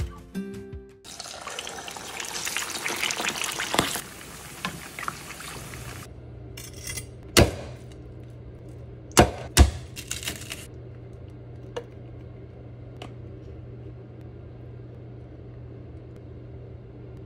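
Pork leg sizzling in deep-frying oil for about five seconds, after guitar music stops about a second in. Then a knife cutting through the crisp fried skin: crackling and three sharp chops, followed by a low steady hum.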